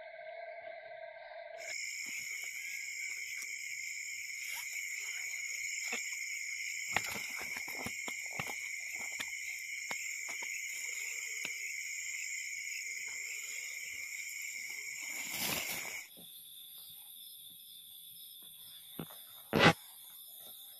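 Steady chorus of night insects: several unbroken high-pitched trills that shift abruptly twice. Faint rustles and clicks of handling run under it, and a sharp loud knock comes near the end.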